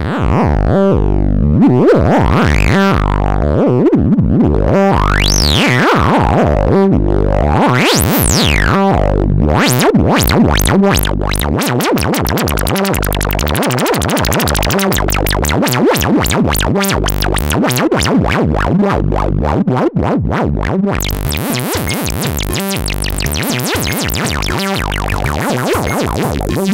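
Modular synthesizer note pattern running through the Make Noise QMMG as a resonant filter, its voltage-controlled feedback resonance turned up. A whistling resonant peak sweeps up and down three times, then the sound turns dense and buzzy and grows brighter about two-thirds of the way through.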